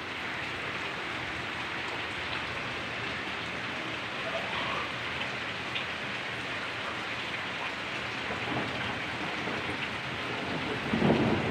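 Heavy rain pouring steadily onto a wet yard and its plants, with a brief louder noise near the end.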